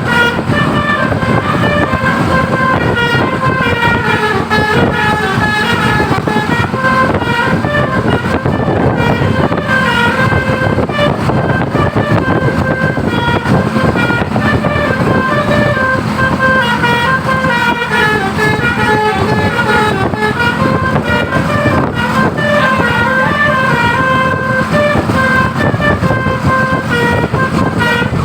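Bus basuri telolet horn playing a continuous melody of stepping notes, over a steady low rumble.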